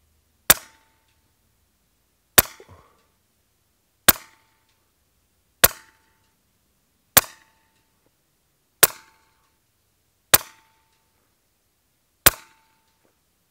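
Daystate Red Wolf .22 PCP air rifle firing a string of slugs: eight sharp shots, one about every one and a half to two seconds, each with a brief ring after it.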